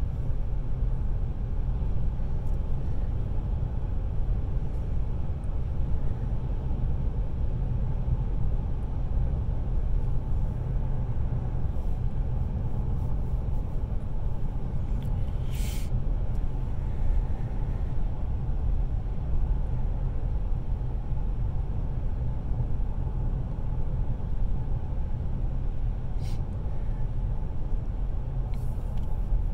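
Steady low rumble of a car driving, heard from inside the cabin. A brief sharp click comes about halfway through, with fainter ones near the end.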